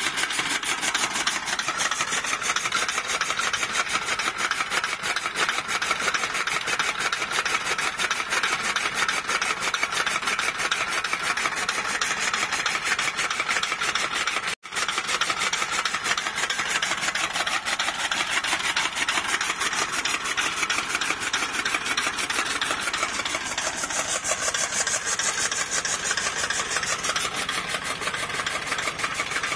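Tractor-driven flywheel chaff cutter chopping green fodder as it is fed in: a fast, steady rasping chop. The sound drops out for an instant about halfway.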